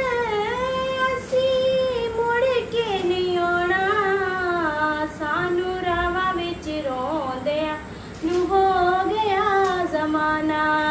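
A woman singing a Punjabi naat solo, without accompaniment, drawing out long held notes with ornamented turns and wavers in pitch.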